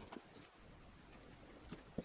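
Near silence with three faint, short taps: one just after the start and two near the end, the last the loudest.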